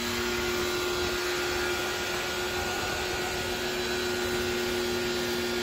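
Electric pressure washer's motor and pump running steadily with a constant hum and the hiss of the spray. The nozzle is set for a low-pressure stream that siphons shampoo into the water.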